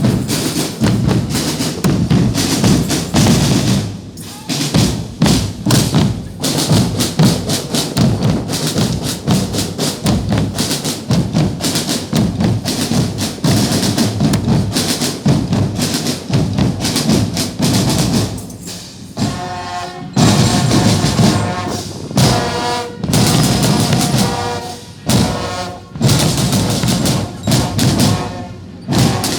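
Drum band playing a fast, busy drum rhythm with a bass drum, and short pitched melody phrases joining in during the last third.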